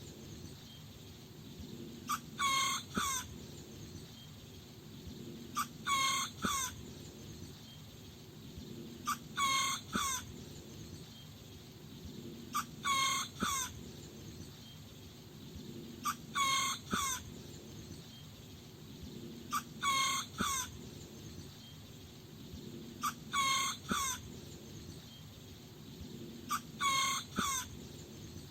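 Small rooster crowing, a short high crow of about a second repeated evenly about every three and a half seconds, eight times, over a faint low background hum.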